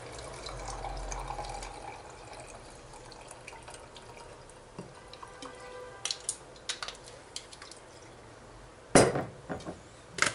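Clear liquid poured from a glass bottle into a small drinking glass, trickling for the first couple of seconds. Then come small clicks and taps at the bottle, and a loud knock about nine seconds in as the glass bottle is set down on the counter, with another knock near the end.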